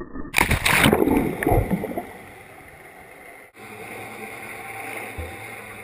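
Water splashing and rushing over the camera as the towed inner tube flips, loud for about two seconds. Then it drops to a steady, muffled underwater hush as the camera goes under.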